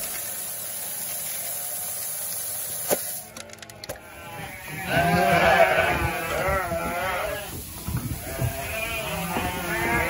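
Shelled corn pouring from a feed bin chute into a plastic bucket, a steady hiss. After a cut about three seconds in, a flock of ewes bleating loudly, many calls overlapping, as they are fed corn.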